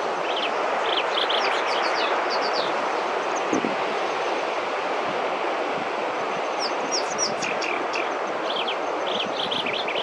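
Small birds chirping in quick runs of short, high notes, once in the first few seconds and again from about seven seconds in, over a loud, steady rushing noise.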